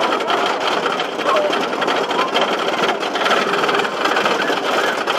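GhostRider wooden roller coaster train clattering along its track, heard from on board: a loud, steady, rapid mechanical rattle.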